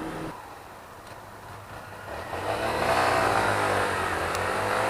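125cc motorcycle engine accelerating, getting louder and rising in pitch about two and a half seconds in.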